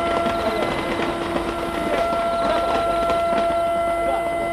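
A steady droning hum with a faint murmur of distant voices and faint high chirping; no firework bursts.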